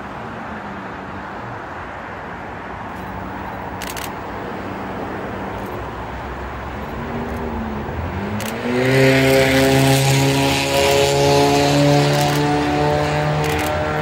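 Diesel-electric locomotive hauling a freight train, approaching and passing close by. Its engine drone grows slowly, then becomes loud and steady from a little past halfway, with rushing wheel and rail noise, and the pitch starts to fall as it goes past at the very end.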